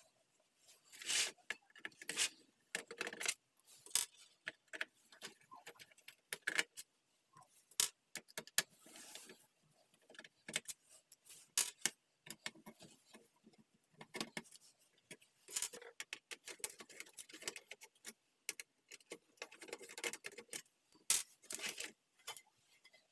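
Plastic keyboard parts handled during cleaning: irregular sharp clicks and clacks, with longer stretches of rubbing or scrubbing in between.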